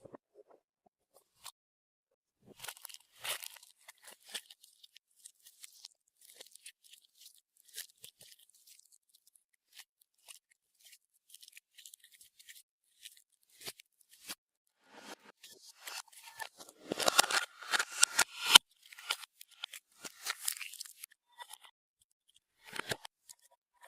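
Clear slime being squeezed and worked by hand, giving irregular sticky crackles and small pops. The crackling comes in bursts, thickest and loudest in a long run in the second half.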